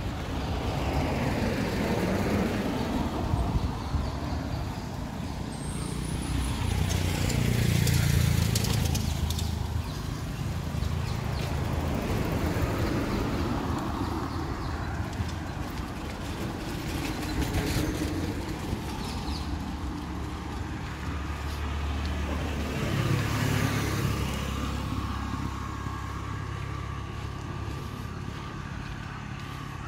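Road traffic: motor vehicles passing one after another, with engine rumble and tyre noise swelling and fading. The loudest passes come about 8 seconds in and again about 23 seconds in.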